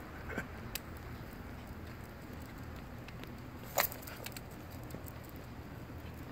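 Low, steady outdoor background rumble with a few light clicks and taps, the sharpest one a little under four seconds in.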